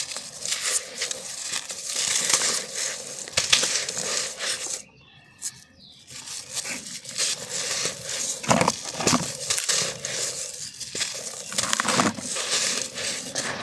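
Dry, dusty black sand being crushed and crumbled by hand in a clay pot: a dense gritty crunching of many small cracks, with a pause of about a second roughly five seconds in.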